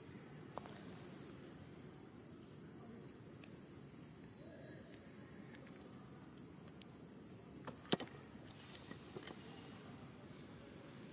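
Insects trilling steadily in two high, even tones over faint low background noise, with a few soft clicks and one sharp click about eight seconds in.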